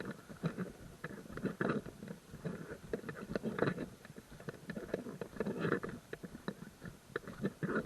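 Footsteps crunching on a gravel trail while walking, with scuffs and small clicks between the louder steps.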